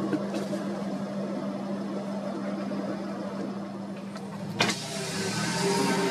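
An engine running steadily, a low even drone over a background hiss, with one sharp knock about four and a half seconds in.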